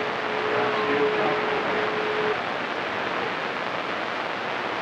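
CB radio receiver hissing with band static between transmissions, with a steady whistle under the noise that cuts off about two seconds in and faint garbled voice fragments about a second in.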